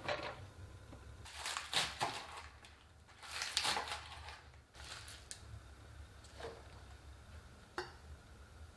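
Kitchen handling sounds: several crinkly rustles, like plastic packaging being crumpled or handled, and a few light clicks and taps, over a steady low hum.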